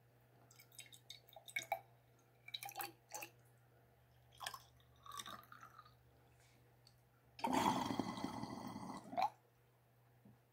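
Water poured from a plastic bottle into a glass bong, splashing and gurgling down through its honeycomb percolators for about two seconds near the end. Before it come scattered light clicks and taps of the glass and the bottle being handled.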